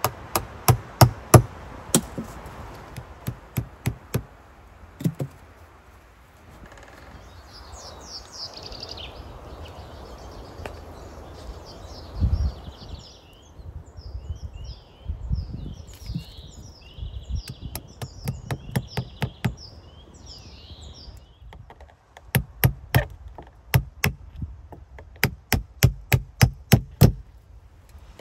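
Repeated sharp knocks of a tool on the logs at the base of a log wall, about two to three a second, in runs at the start and again near the end. Small birds chirp in the middle stretch.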